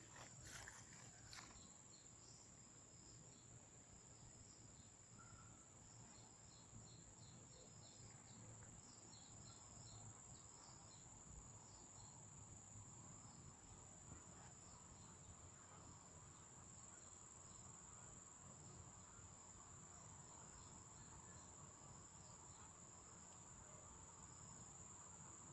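Faint insect chorus: a steady high-pitched trill throughout, with short repeated chirps over it in the first half. A few soft clicks sound right at the start.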